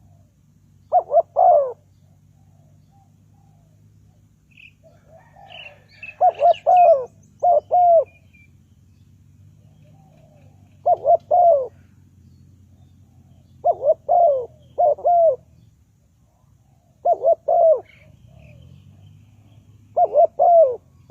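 Spotted dove cooing: six short phrases of three to four low coos each, repeated every three to four seconds. Faint higher chirps from another small bird come in around the second phrase.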